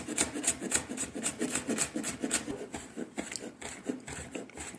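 Knife chopping a pepper on a cutting board, in quick, even strokes of about five a second that thin out and fade near the end.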